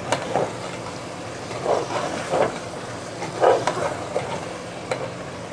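Chicken and yogurt sizzling in a steel pot while a slotted metal spatula stirs it, scraping and knocking against the pot every second or so, as the yogurt's water is cooked off.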